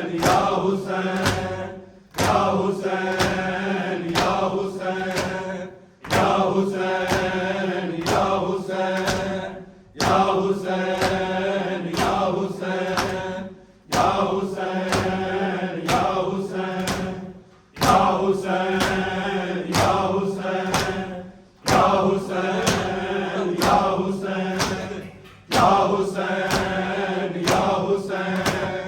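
A crowd chanting a nauha in repeated phrases about four seconds long, kept in time by the regular slaps of matam, hands beating on chests.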